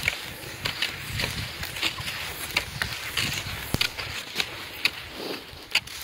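Footsteps in snow, about two steps a second.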